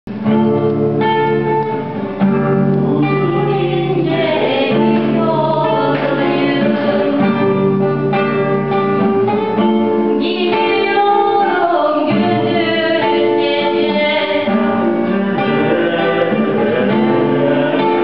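Acoustic guitar and violin playing a Turkish folk tune together, with a voice singing along.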